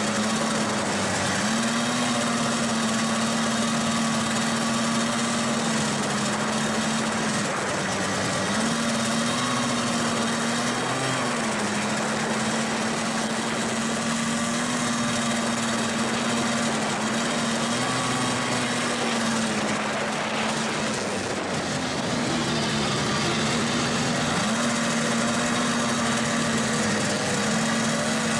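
Snowmobile engine running steadily while under way, its pitch dipping and coming back up several times with the throttle, over a constant rushing noise.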